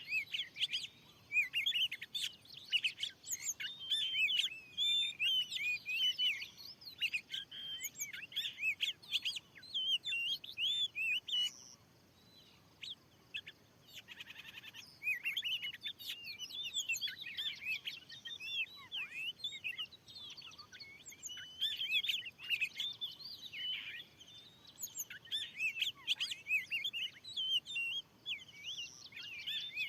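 Oriental magpie-robin (kacer) singing a rapid, varied run of whistles and warbles, with a pause of a few seconds near the middle.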